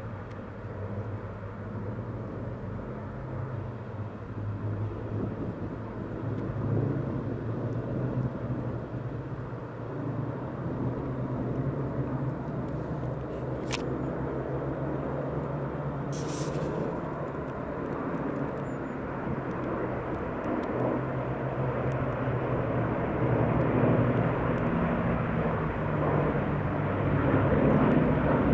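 Several Hawker Hurricanes' Rolls-Royce Merlin V12 engines droning steadily overhead in formation, growing louder toward the end as the aircraft come closer. A short sharp click sounds about halfway through.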